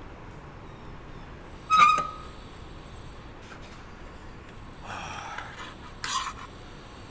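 Metal spoon and fork on a plate: a sharp clink with a brief ring about two seconds in, then the spoon scraping across the plate and another clink as food is scooped up near the end.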